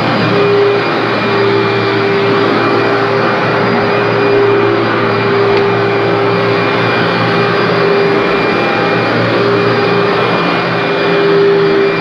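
Commercial upright vacuum cleaner running on carpet, a steady motor rush with a constant whine as it is pushed slowly over the pile to lift dry soil.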